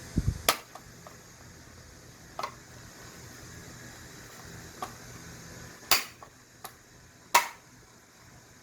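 Sharp clicks and knocks of a door latch mechanism and tools being handled during a latch repair: a dull thump at the start, then about six separate clicks, the loudest two near the end.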